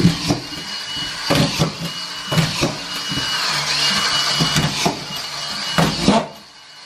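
Cordless autofeed screw gun driving collated screws through plywood into the chipboard floor: short runs of a steady motor whine, about one a second, each with sharp clicks and knocks as a screw is fed and driven home. It stops about six seconds in.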